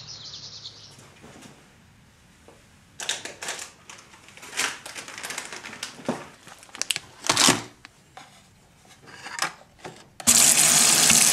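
Cookware clattering: pans and dishes knock together in scattered clanks as a frying pan is pulled out of a crowded dish rack. Near the end a loud steady hiss starts suddenly.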